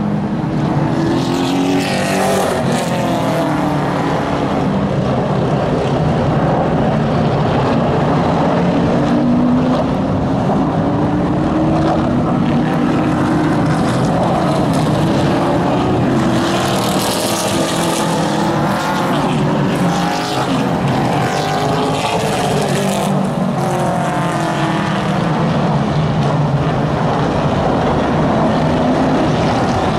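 A pack of super late model stock cars racing on a short oval. Their V8 engines run continuously and loudly, rising and falling in pitch as cars go by.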